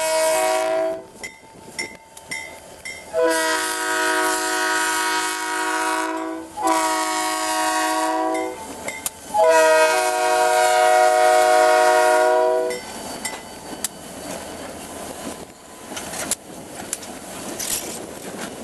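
Diesel locomotive air horn, a chord of several steady tones, sounding a grade-crossing warning: a blast that ends about a second in, then a long blast, a shorter one and another long blast. After the horn stops, the diesel engine and the wheels clicking over rail joints are heard as the locomotive passes close by.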